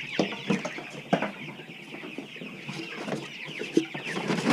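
A crowd of young chicks peeping constantly, which the farmer takes for a sign that they are hungry or thirsty; a few sharp knocks and taps come through in the first second or so.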